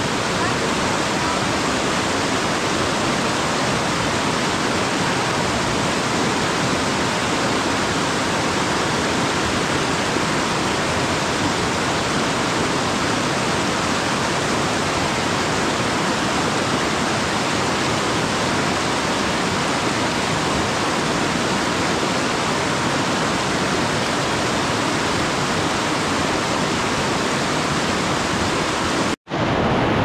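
A fast mountain river rushing, a steady, unbroken sound of churning water. It drops out for an instant near the end.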